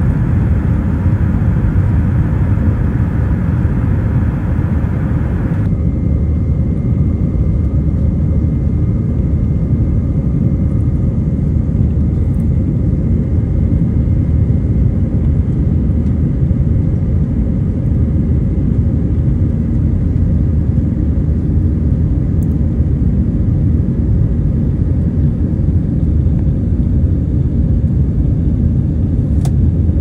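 Steady low rumble of airliner cabin noise from engines and rushing air, heard from a window seat over the wing in flight. The higher hiss drops away suddenly about six seconds in, leaving the low rumble.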